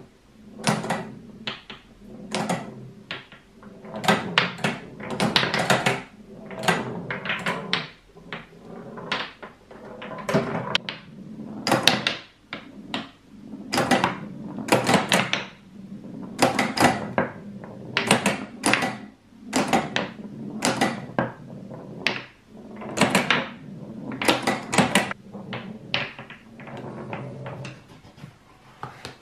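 Homemade wooden tabletop pinball game: a run of irregular wooden knocks, clacks and rolling rattles from the plywood playfield and its wooden flippers and bumpers as it is played and handled.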